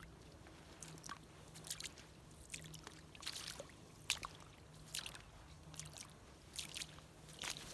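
Faint footsteps of bare feet on a gravelly dirt trail, a short soft crunch at an even walking pace of about one step every 0.8 seconds.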